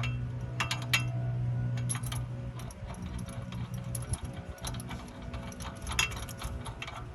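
Hand tools clinking and tapping against metal while working on a car's rear hub and axle, in scattered sharp clicks. A steady low hum runs under the first few seconds, then stops.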